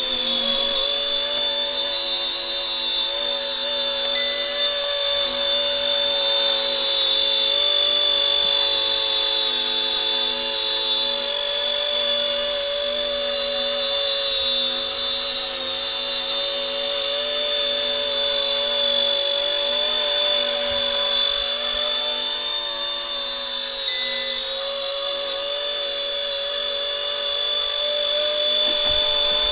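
RC ERA C190 micro helicopter's electric motors and rotors whining steadily as it hovers. Two short beeps, about four seconds in and again about 24 seconds in, mark the optical flow sensor being switched off and on.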